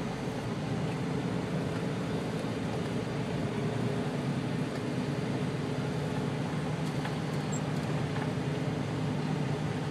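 Truck engine running steadily, heard from inside the cab while the truck moves slowly over a snow-covered road.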